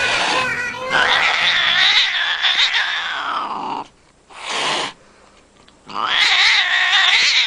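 Cats yowling in long, wavering caterwauls: one drawn-out call, a short noisy burst in the middle, then another yowl starting near the end.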